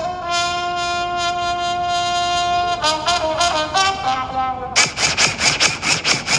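Music led by brass horns: one long held note for about three seconds, then a few shorter notes, then a run of quick staccato stabs near the end.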